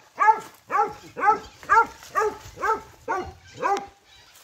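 A dog barking in a quick run of eight short, high-pitched barks, about two a second, each rising and falling in pitch. The barking stops about four seconds in.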